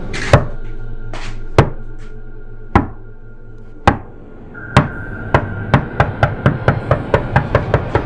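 Suspense film score: a sustained low drone with sharp knock-like percussive hits, about one a second at first, then quickening to around four a second from about five seconds in.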